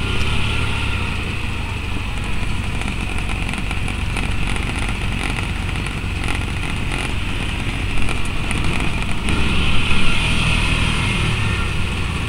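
Side-by-side utility vehicle's engine running steadily as it drives along a gravel track, heard from the driver's seat, with a few louder bumps about two-thirds of the way through.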